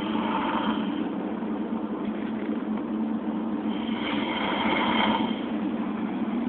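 A person snoring: a steady low, rough rattle, swelling twice into louder, hissier snores, near the start and again about four seconds in.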